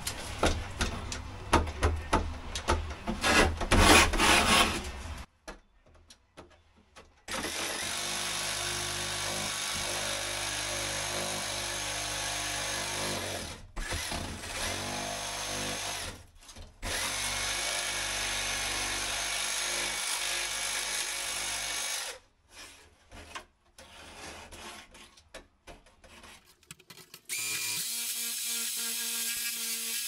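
Cordless reciprocating saw (Sawzall) cutting into an insulated plasterboard-lined cavity wall: ragged and loud for the first few seconds, then running steadily in stretches of several seconds with short stops between.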